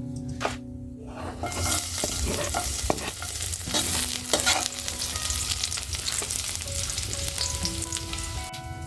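Food sizzling in hot oil in a pan as it is sautéed (ginisa), the sizzle rising sharply about a second and a half in, with clinks and scrapes of a utensil stirring it.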